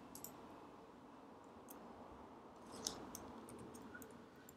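Near silence with a few faint, scattered clicks from working a computer, the loudest about three seconds in.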